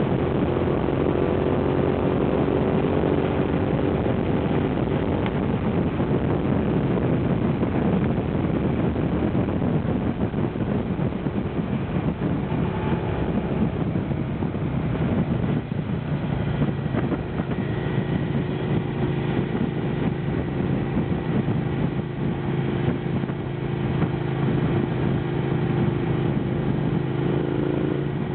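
Suzuki SV650's 645 cc 90-degree V-twin engine running under way at road speed, heard from the rider's position with wind rush over the microphone. Engine speed varies in the first half, then holds steady for the rest.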